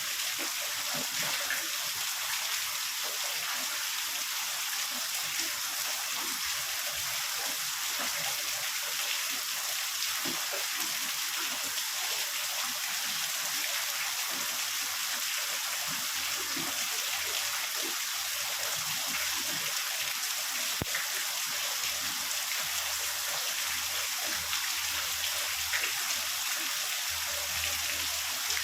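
Heavy rain falling steadily: a dense, even hiss with scattered individual drops pattering.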